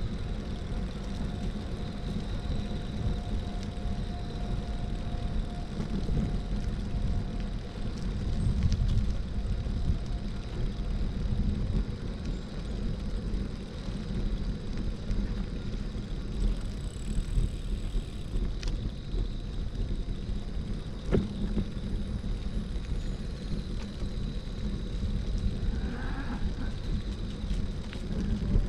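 City street ambience recorded while walking: a steady low rumble of traffic and the street, with a faint steady high whine and a few light clicks.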